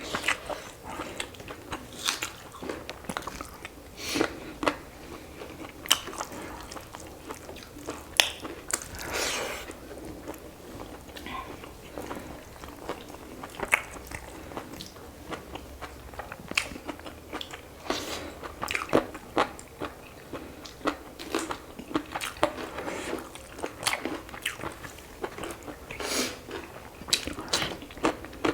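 Close-up mukbang eating sounds of a chicken curry and rice meal: chewing and crunching, with many irregular smacks and clicks of mouths.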